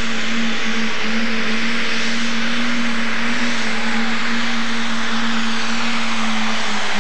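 Super stock International pulling tractor's engine running flat out under load during a pull, a loud steady drone that holds one pitch, with a heavy rushing noise over it.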